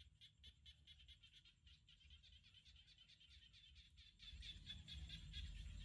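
Faint chorus of frogs calling around a rice paddy: rapid pulsed calls repeating several times a second, with a low rumble rising about four seconds in.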